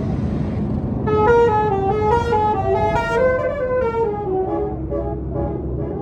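A tour bus's 'basuri' telolet horn plays a quick tune of short stepped notes, climbing and then falling, starting about a second in and fading out toward the end. Bus engine and road rumble run underneath.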